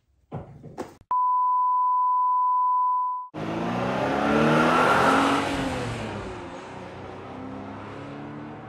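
A steady high beep for about two seconds, cut off abruptly. Then a car engine revving, rising and then falling in pitch, loudest early on and slowly fading.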